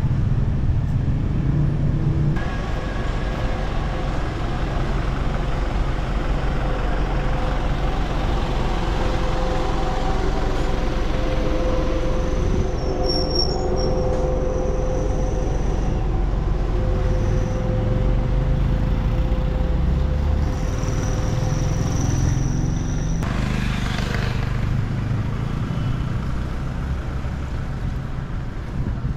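Street traffic: motor vehicle engines running steadily, with a held engine tone from about five seconds in to about twenty-two seconds.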